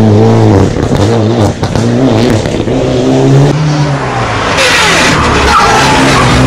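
Race car engines accelerating hard up a mountain road, the engine note rising and falling through gear changes. About four seconds in, the sound cuts to a classic Mini racing car revving through a bend, with a rising whine.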